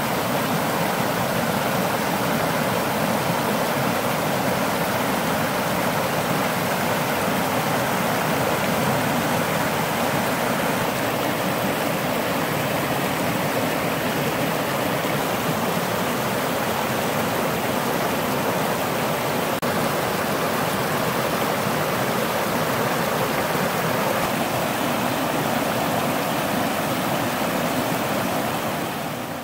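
River rapids and a small waterfall: water rushing steadily over rocks, fading down near the end.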